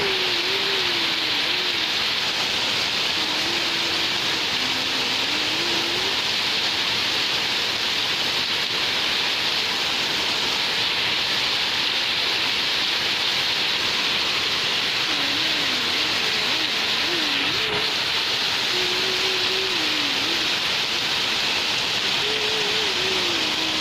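Heavy rain pouring down: a steady, unbroken hiss of rain falling on the yard and the wet porch tiles.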